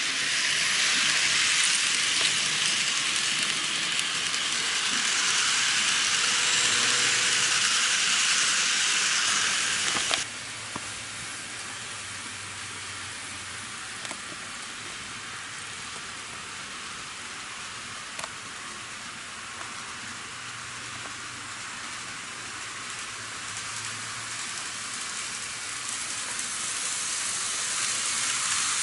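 N-gauge model trains running on sectional track: a steady hiss of wheels and motors, with a few light clicks over rail joints and turnouts. The sound drops suddenly about ten seconds in and swells again near the end as a train comes closer.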